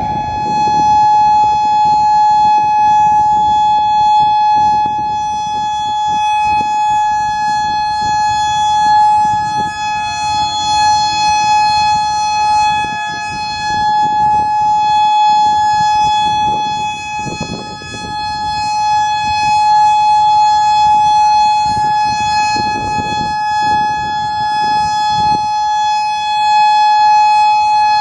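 Federal Signal Modulator 6048 electronic outdoor warning siren sounding its Alert signal: one steady tone held without a break, with wind buffeting the microphone. A fainter, slightly lower siren tone from other sirens comes and goes from about ten seconds in.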